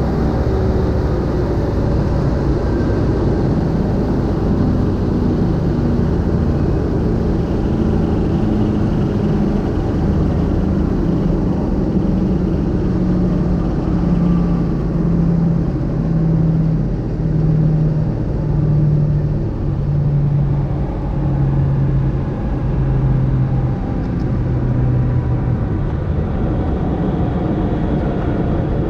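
Cockpit noise of an unblown piston-engined land-speed streamliner running on the salt: loud, steady engine, driveline and wind rumble. Through the middle, a tone within the rumble falls slowly in pitch.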